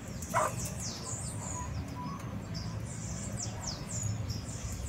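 Chicks peeping: many short, high notes that fall in pitch, several each second, with one short lower call about half a second in, over a low steady rumble.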